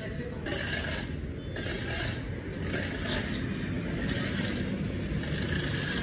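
Steady low rumble of road traffic passing outside.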